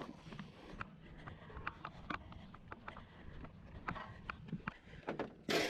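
Scattered light knocks and clatter of salvaged items being picked up and loaded, with one louder bang near the end.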